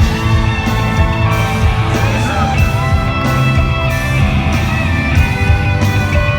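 Live rock band playing at concert volume: distorted electric guitars, bass and drums, with some singing.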